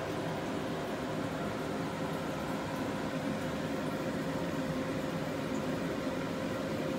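Aquarium equipment running: the steady hiss of an air pump and air stone bubbling in the tank water, over a constant hum.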